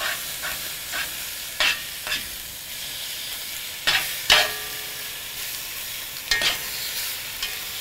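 Beef short rib chunks sizzling steadily as they sear in a hot cast-iron Dutch oven, a sizzle that shows the pot is hot enough to brown the meat. Metal tongs clink against the pot several times as the pieces are turned.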